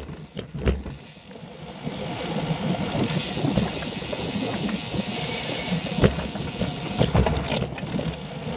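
Wind rushing over the microphone of a camera riding on a moving road bike, with tyre and road rumble and the bike rattling. A few sharp knocks from bumps come in the later seconds.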